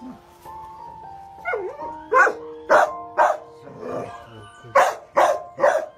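Dog barking: six short barks in two sets of three, starting about two seconds in. Soft background music of held notes runs underneath.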